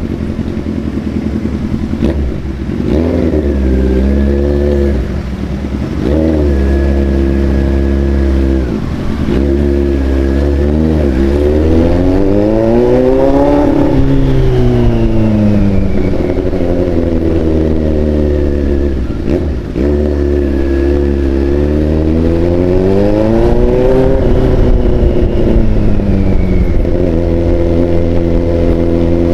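Big-capacity motorcycle engine running under the rider, revved up and eased off again and again, the pitch climbing highest about halfway through and again near three-quarters through, over a steady low drone.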